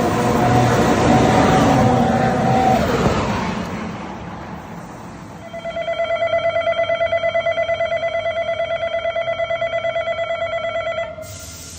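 Car engine and road noise that fades over the first few seconds, then a rapidly pulsing electronic ringing tone for about five seconds that cuts off suddenly.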